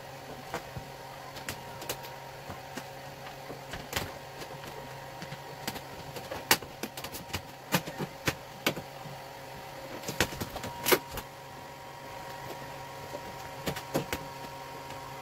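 Vinyl wrap film crackling in irregular sharp clicks and ticks as it is pressed and smoothed onto a car hood by fingers and a plastic squeegee, with a louder cluster of clicks about ten to eleven seconds in. A steady hum runs underneath.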